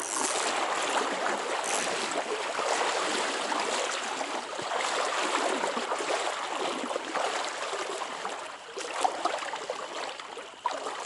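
Stream water running steadily, an even hiss of moving water.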